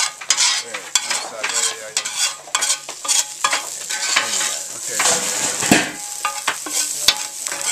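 Onions and peppers sizzling in a large hot pan while a metal spatula scrapes and turns them, with repeated quick scrapes and clanks of metal on metal over a steady high hiss.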